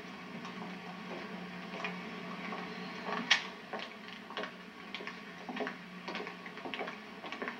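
Banquet-room background noise: scattered light clicks and knocks at irregular intervals, one sharper click about three seconds in, over a steady low hum.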